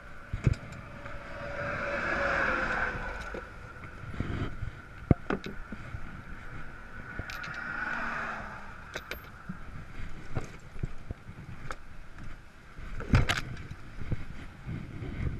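Road traffic passing by, two vehicles swelling and fading a few seconds apart, with scattered sharp knocks and clanks in between.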